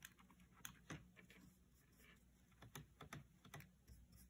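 Faint, irregular light clicks and taps of a paintbrush working in a plastic watercolour paint set, mixing paint in the pan and dabbing it onto the plastic palette.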